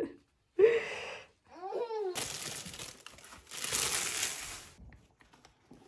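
Two stretches of crinkling rustle, the second one longer and louder, after two short high-pitched vocal sounds.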